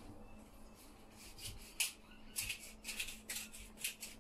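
Hand spice grinder being twisted over raw pork chops: a run of short gritty rasps, about three a second, starting a little before the middle.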